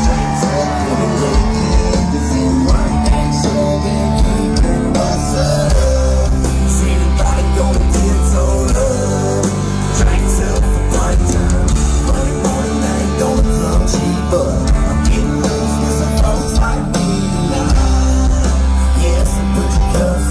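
Live band playing loud amplified music through the concert sound system: singing over guitar, drums and heavy bass.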